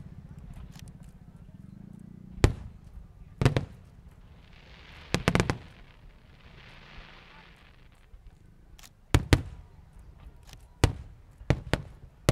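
Aerial fireworks bursting: sharp bangs at irregular intervals, a quick cluster of them about five seconds in, followed by a couple of seconds of crackling, then more bangs in pairs towards the end.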